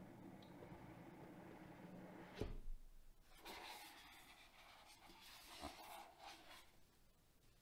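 Hands handling the cardboard box of a gaming mouse: soft rubbing and sliding, a sharp knock about two and a half seconds in, then papery rustling with a small tap.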